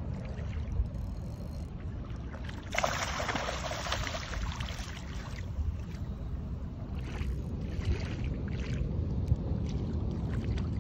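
Wind buffeting the phone's microphone over shallow estuary water, a steady low rumble. About three seconds in, a louder rush of noise lasts for about two and a half seconds as the hooked fish is worked through the shallows.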